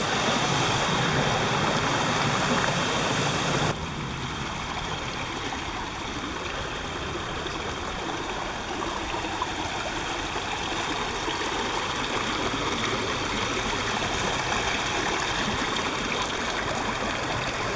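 Steady rush of water from a small stepped waterfall spilling into a shallow creek. A little under four seconds in it cuts abruptly to a quieter, steady running of the creek over rocks.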